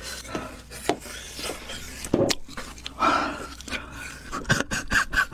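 A woman panting and breathing hard through her mouth from the burn of very spicy food, with a few short clicks near the end.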